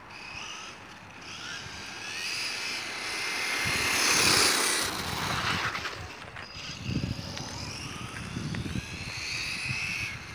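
Traxxas Stampede RC monster truck's 3660 brushless electric motor whining as the truck speeds along the pavement, the pitch rising and falling with the throttle. The whine and tyre noise swell as it passes close, loudest about four seconds in.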